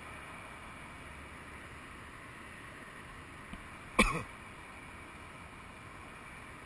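Steady outdoor background noise with one short, sharp thump about four seconds in, preceded by a faint click.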